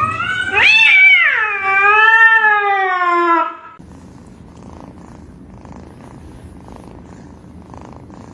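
A cat giving one long, drawn-out meow that rises, then falls and wavers in pitch for about three seconds. After it come several seconds of much quieter low, rough noise.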